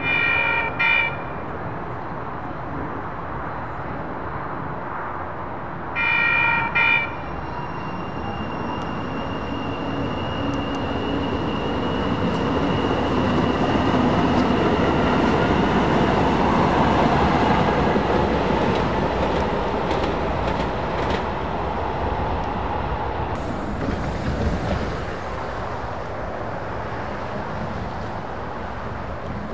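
Sacramento RT light rail train sounding two short horn signals about six seconds apart, then pulling away. The motors give a rising whine as it accelerates, and the rolling noise swells as it passes and fades as it leaves.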